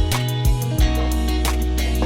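Background music: a guitar-led track over held bass notes, with a steady beat about twice a second.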